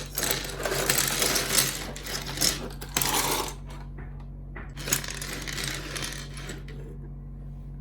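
Small hard plastic pieces, most likely loose keyboard keycaps, clattering and rattling together as they are handled, in two spells with a short pause about three and a half seconds in. A low steady electrical hum runs underneath.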